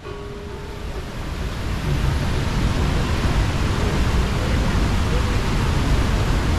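Steady rushing roar of a waterfall, swelling over the first two seconds and then holding steady.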